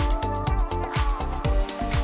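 Background music with a steady beat of about four thumps a second under held notes.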